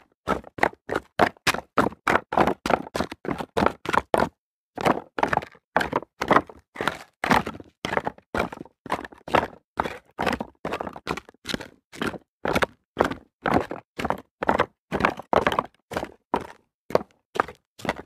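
Footsteps of a person running on rocks: a fast, even train of footfalls, about three a second, with one brief break about four seconds in.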